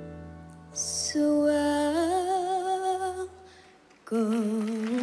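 A young girl singing a slow ballad solo over a soft piano chord that fades. She holds a long note with vibrato, breaks off briefly, then starts the next phrase about four seconds in.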